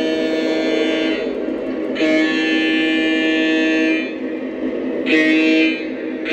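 Sampled diesel air horn of a Lionel O gauge model diesel locomotive, blown in the grade-crossing pattern: two long blasts, one short, and a final long blast beginning at the very end. The horn is a chord of several steady tones that start and stop sharply.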